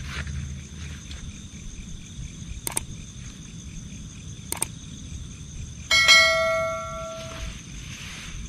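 A single loud bell-like metallic ring, struck suddenly about six seconds in and dying away over about a second and a half. Under it, steady chirring of night insects, with two sharp clicks earlier on.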